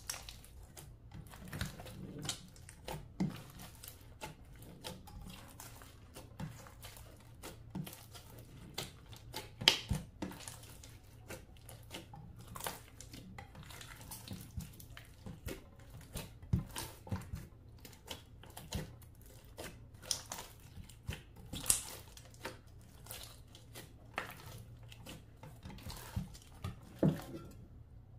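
Clear slime being mixed and pressed by hand, making irregular sticky clicks and pops, with a few louder snaps.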